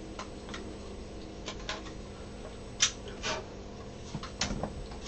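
An X-Acto hobby knife working at a 3D-printed part, making a few irregular light clicks and ticks, the sharpest about three seconds in, over a faint steady hum.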